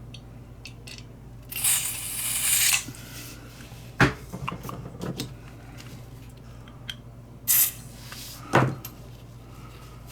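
Small metal lighter parts being handled and set down: a hiss lasting about a second, then a sharp click followed by a short rattle, and two more brief knocks near the end.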